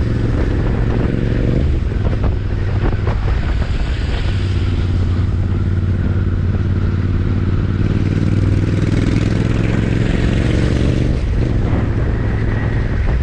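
Royal Enfield Interceptor 650's 648 cc parallel-twin engine and exhaust running loud on the move. Its pitch climbs for a few seconds past the middle, then drops back near the end.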